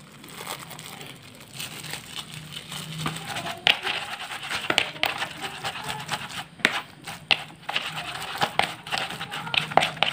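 Plastic bag crinkling as crumbly fish bait is squeezed out into a plastic bowl, then a plastic rice paddle scraping and pressing against the plastic bowl, crushing the bait fine in repeated irregular strokes from about a third of the way in.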